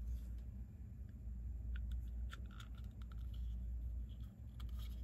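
Faint, light clicks and taps of small hard resin-printed parts being handled and pressed together, bunched about two to three seconds in and again near the end, over a steady low hum.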